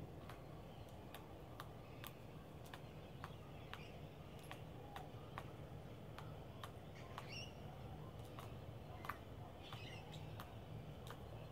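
Australian brush-turkey's claws clicking on ceramic tiles as it walks, sharp clicks about twice a second.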